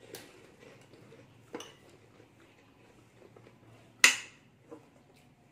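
A metal spoon tapping and scraping on a plate, with one sharp, ringing clink about four seconds in and a few fainter taps before and after.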